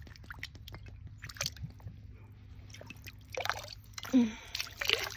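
A glass bottle being pulled out of shallow creek water by hand: wet squishing, splashing and dripping with scattered small clicks and knocks, heaviest in a few bursts through the second half.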